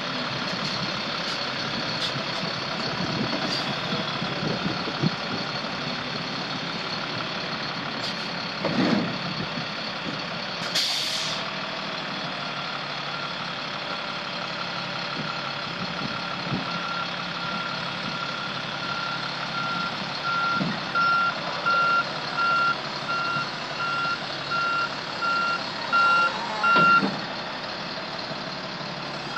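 2007 Freightliner M2 106 truck's Caterpillar C7 six-cylinder diesel running steadily. About eleven seconds in, the air brakes give a short hiss. A backup alarm then beeps, faint at first and louder toward the end, a little more than once a second.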